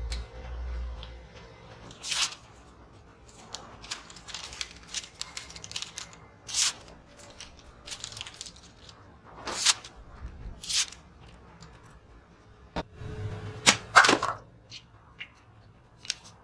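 Sheet of paper being handled and sliced against the sharpened edge of a restored briquet saber, in a string of short, sharp crackles and rips. The loudest comes near the end.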